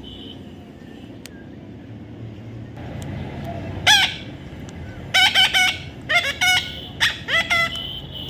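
A bird giving a series of loud, harsh calls: one sharp sweep about four seconds in, then several short call groups, the last ending on a held note.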